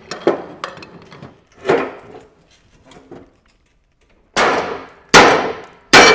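Hand tools working on the riding mower's blade and deck: light metallic clicks and knocks, then after a short pause three loud ringing metal strikes about three-quarters of a second apart near the end.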